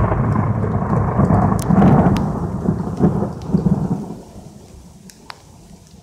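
A long rumble of thunder, loud for the first few seconds and dying away about four seconds in, with rain and scattered raindrop ticks under it.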